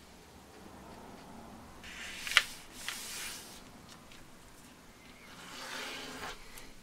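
A sheet of graph paper being unfolded and smoothed flat by hand. Soft paper rustling, with one sharp click about two and a half seconds in and a sliding swish of a hand across the paper near the end.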